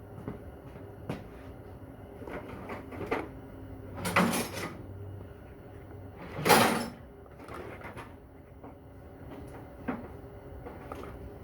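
Drawers being opened and shut during a search for parts, with light clicks and knocks of things being moved. Two louder sliding rushes come about four and six and a half seconds in.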